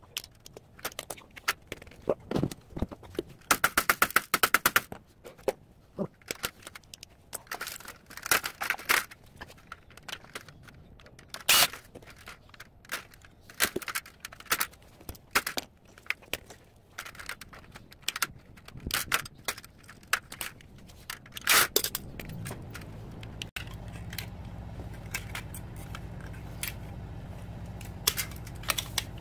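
Hand-tool work on a sheet-steel fluorescent light fixture: irregular clicks, snips, scrapes and metallic clinks as wires are cut and fittings pulled off, with a short rattling patch a few seconds in. A low steady hum comes in about three quarters of the way through.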